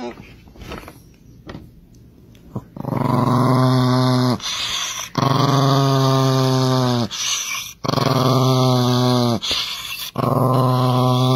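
Small chihuahua-type dog growling in four long, drawn-out growls of a second and a half to two seconds each, with short breaks between, starting about three seconds in.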